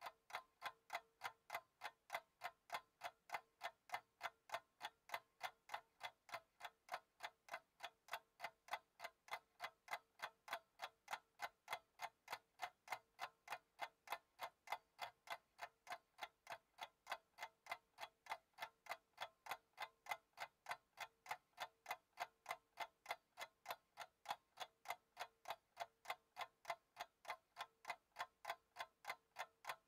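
Clock ticking sound effect: an even, unbroken run of sharp ticks, about three a second.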